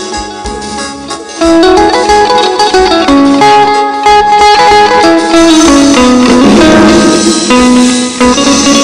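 Instrumental mor lam band music: a khaen (bamboo mouth organ) holding long reedy notes over a plucked string melody, with bass and a drum beat. It gets much louder about a second and a half in.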